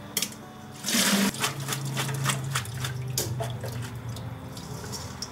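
Kitchen tap running over sliced potatoes as they are rinsed, the water starting about a second in, with splashes and clinks of the bowl and strainer and a low steady hum under the water.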